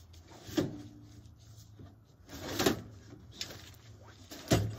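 Steel frame sections of a Field & Stream Stealth II climbing tree stand clanking and scraping against each other as the two halves are nested together, with three knocks and the loudest near the end.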